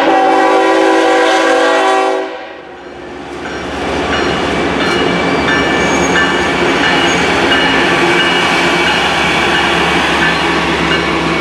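Air horn of a BNSF freight locomotive sounding a chord that cuts off about two seconds in. Then the diesel locomotives, including an EMD SD70MAC, run past with their tank-car train, a steady loud rolling noise with wheels on rail.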